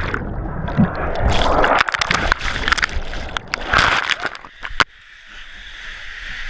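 Water sloshing and splashing loudly around a person moving through it, with a few sharp knocks, for about five seconds; then it drops suddenly to a quieter steady rush.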